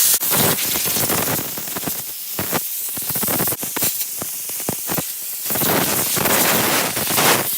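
Air blower hissing in short spurts, with many brief breaks, as it blows loose rust and grit off a freshly wire-brushed wrench.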